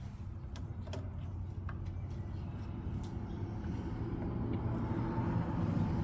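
Low vehicle engine rumble growing steadily louder, with a few light metallic clicks on top.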